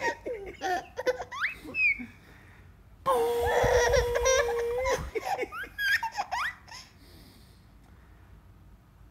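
A baby laughing in short bursts, with rising high-pitched squeals. Midway a man makes a weird steady-pitched vocal noise, held for about two seconds, and the baby laughs again. The laughter then dies away over the last two seconds.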